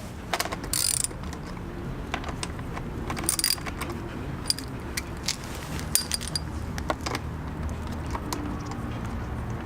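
Small metal parts being handled, clinking and rattling, with a few sharper ringing metallic clinks, about a second in, around three and a half seconds in and around six seconds in.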